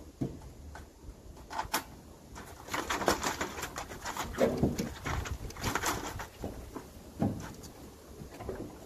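Irregular rustling, scraping and clinking as a caught rabbit and its net are handled and the wire cage trap is worked, busiest in the middle few seconds.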